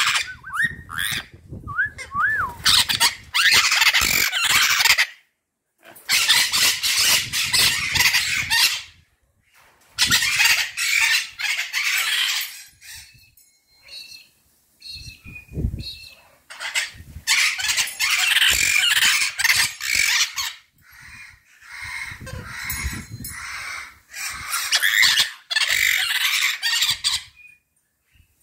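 White-fronted Amazon parrots calling loudly in long stretches of harsh squawks separated by short quiet gaps, with a few short up-and-down whistles in the first few seconds.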